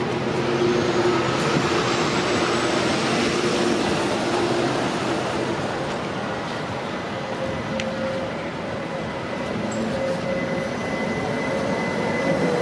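Articulated tram approaching and pulling in at a stop, its running noise rising and falling steadily, with a faint high whine joining near the end as it comes round the curve.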